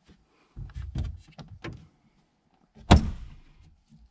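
Handling knocks and rustling around the storage compartments behind the seats of a 1971 Corvette, then one sharp, loud knock about three seconds in as a compartment lid is shut.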